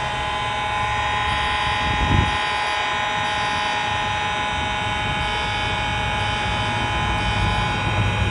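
Fire alarm horn sounding a continuous, buzzy tone with no breaks in it.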